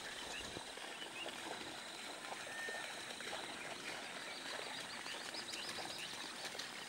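Many short bird chirps and calls over a steady outdoor hiss, with a thin high tone held underneath.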